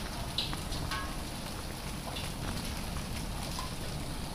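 Heavy hail mixed with rain pelting a wet paved courtyard: a steady dense patter with scattered sharp ticks of stones striking the ground.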